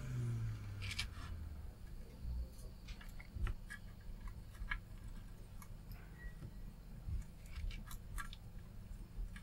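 Faint, irregular small clicks and crackles from a soldering iron working desoldering braid over the pads, with flux smoking. In the first second a blower's hum falls in pitch and fades out.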